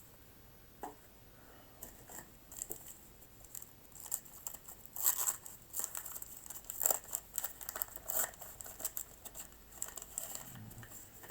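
Wax-paper wrapper of a 1985 Topps baseball card pack crinkling and tearing as it is opened, a run of sharp crackles that is densest in the middle.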